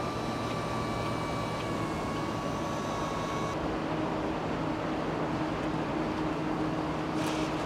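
Factory-floor machinery ambience: a steady mechanical hum and noise with thin whining tones. The sound changes abruptly about three and a half seconds in, and a short hiss comes near the end.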